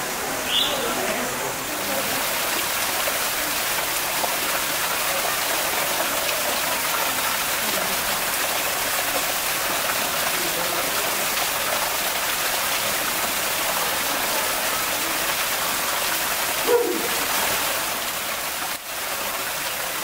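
A small artificial waterfall splashing steadily as it falls from a rock ledge into a pool. A short high chirp sounds at the start, and a brief sharp knock comes about three-quarters of the way through.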